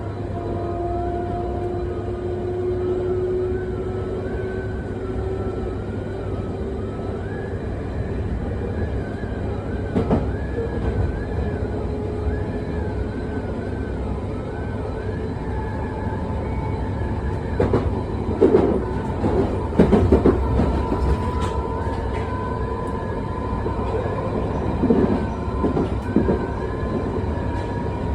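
London Underground 1973 Stock train running, heard on board: a steady rumble under the whine of its traction motors, whose pitch shifts partway through. Wheels clack over rail joints once about a third of the way in and in several clusters in the second half.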